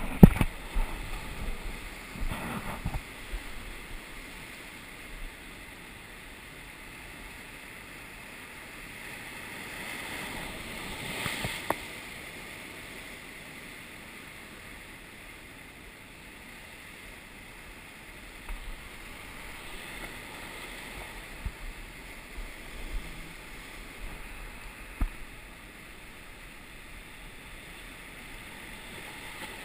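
Sea swell washing and breaking over rocks close to a kayak, with a bigger wave surging about ten to twelve seconds in. A few sharp knocks, the loudest right at the start.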